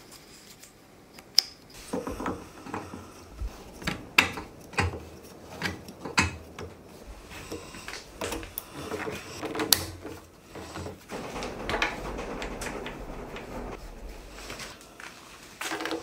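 A plastic garden-hose quick connector being worked onto the pump's brass water inlet by hand: a series of sharp clicks and knocks with rustling handling between them.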